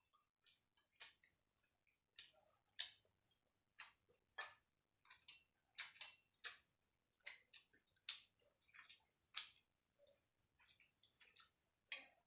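Eating sounds of someone chewing a meal of rice, dal and chicken: irregular wet mouth smacks and clicks, about one or two a second.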